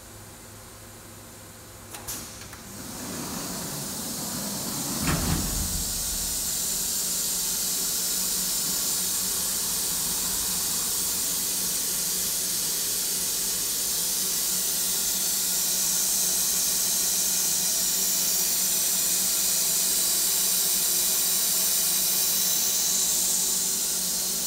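A click, then a loud, steady hiss of compressed air blowing inside a CNC machining centre. It builds over a couple of seconds, with a low thump a few seconds in.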